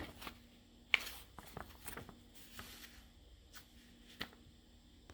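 Faint handling noises: light rustling with a few soft clicks and taps, the sharpest about a second in, over a low steady hum.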